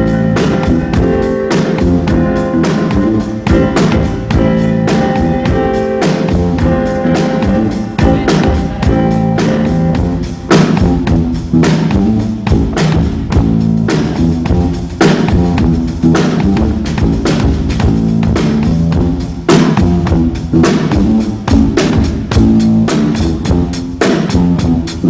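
Live band playing a steady funk groove: a drum kit keeps an even beat under sustained keyboard chords.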